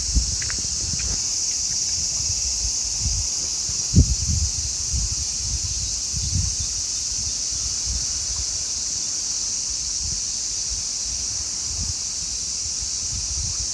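A chorus of cicadas droning steadily and loudly in a high, unbroken buzz. Wind gusts buffet the microphone in low rumbles, with one sharper bump about four seconds in.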